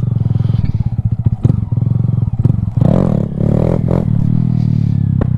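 Honda Grom's single-cylinder engine running while under way, heard from the rider's GoPro. The throttle is opened in several short bursts from about three to four seconds in.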